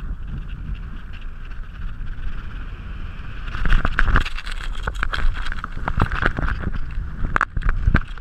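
Wind rushing over the microphone of a paraglider pilot's camera during an in-flight SIV manoeuvre. The rushing gets louder and gustier from about three and a half seconds in, with many sharp clicks and flaps as the wing is thrown to the side.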